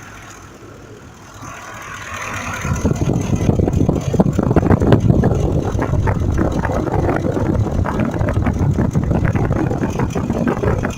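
2005 Ford F-150's 5.4 L V8 running at idle. It becomes much louder about two to three seconds in, with a dense ticking over the engine note. The engine has a misfire on cylinder 2, which the mechanic traces to a failing fuel injector.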